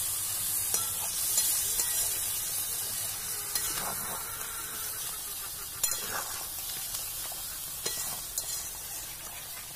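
Chicken curry with whole potatoes sizzling in a metal kadai, with a metal spatula stirring and scraping, clicking against the pan now and then. The sizzle comes from a little water just added to the hot, well-fried masala and fades slowly as it cooks off.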